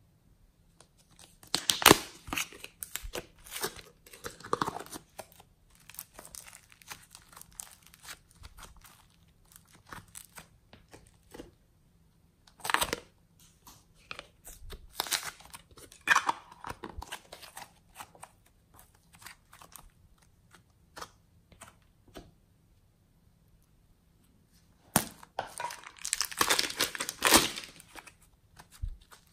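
Soft clay handled in plastic piping bags and pressed onto slime: irregular crinkling and crackling of the plastic with soft sticky clicks. It comes in bursts, busiest a couple of seconds in, around the middle and near the end.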